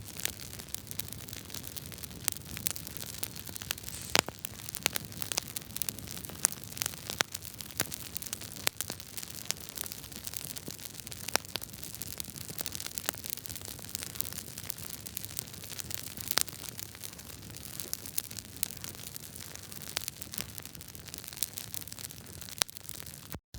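Wood fire burning in a fireplace, crackling with frequent, irregular sharp pops over a steady hiss and a low rumble.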